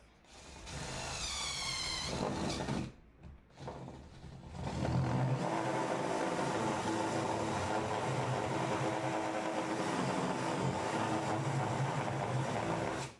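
A motor spinning up with a rising whine, a short pause, then running steadily at a constant pitch until it cuts off suddenly.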